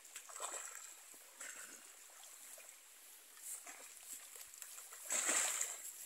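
Sambar deer wallowing in a muddy puddle, sloshing the water in a few short splashes, the biggest splash about five seconds in as it shifts its body.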